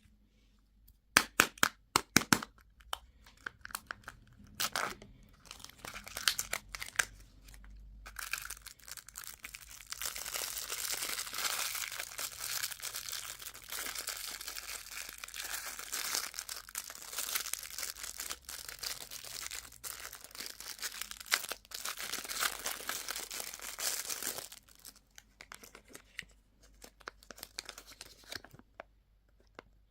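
Candy packaging being opened: a few sharp plastic clicks, then a long stretch of wrapper crinkling and tearing that stops about 24 seconds in, followed by a few light crackles.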